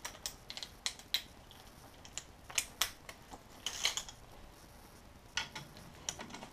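Metal sockets and hand tools clinking in a tool chest drawer as it is rummaged through: scattered short, sharp clinks at irregular intervals, with a small flurry near the middle.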